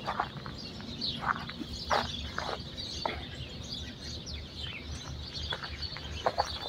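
Several small birds chirping and calling in short, scattered notes, over a steady low rumble.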